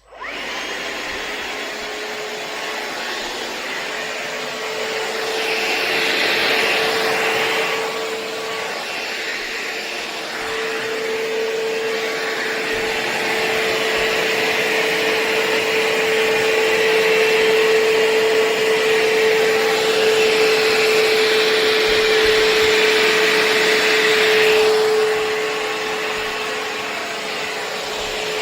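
Shark VacMop Pro cordless vacuum mop running: a steady motor whine under a rushing suction noise. The sound starts abruptly, and the rushing grows louder for a few seconds early on and again through much of the second half.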